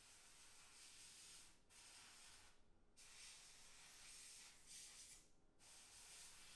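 Faint hiss of an airbrush spraying paint, broken by three short pauses where the spray stops.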